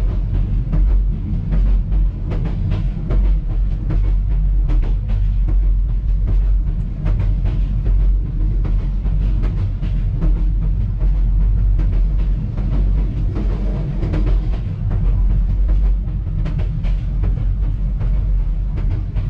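Passenger coach running at speed, heard from inside the corridor of a new PT INKA-built carriage. A steady heavy low rumble from the running gear is overlaid with frequent sharp clicks and knocks from the wheels and the coach body.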